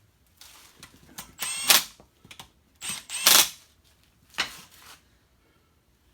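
Metal tools and valve parts clicking and clanking during cylinder-head disassembly, in three loud clusters about a second and a half apart, with a brief high squeak just before the middle one.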